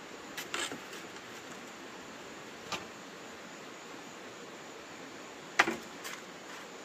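A few short, sharp knocks or clicks over a steady background hiss: a small cluster about half a second in, a single one a little later, and the loudest near the end, followed by a weaker one.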